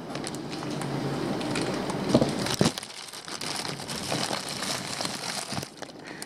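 Plastic fish-shipping bags crinkling and rustling as they are handled, with scattered small clicks and a couple of louder knocks.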